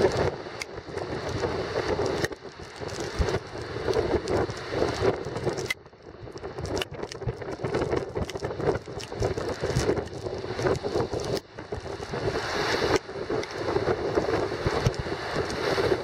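Strong wind buffeting the microphone in gusts, over the rush of storm waves breaking on a harbour breakwater and seawater pouring across the jetty.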